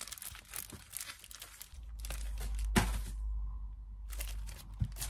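Sticker sheets being handled and stickers peeled off, a run of crinkling and tearing sounds. A sharp click comes a little before three seconds in, and a low hum sits underneath from about two seconds in.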